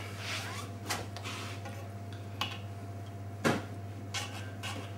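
A long carving knife trimming smoked salmon on a plastic chopping board: soft scraping swishes and light taps, with one sharper knock about three and a half seconds in. A steady low electrical hum runs underneath.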